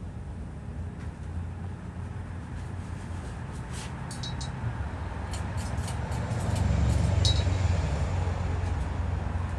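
42-inch Craftmade Decorative ceiling fan with a spinner motor running: a steady low hum and rush of air, growing a little louder past the middle. A few light clinks come in a cluster partway through.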